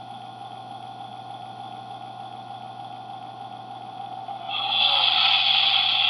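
Steady electronic starship engine hum from a model spaceship's sound kit, swelling into a louder rushing surge about four and a half seconds in.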